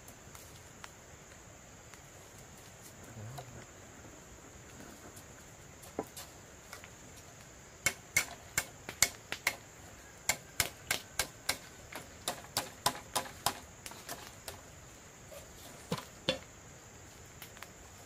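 A run of sharp strikes, two or three a second for about six seconds, then two more near the end, over a steady high insect drone.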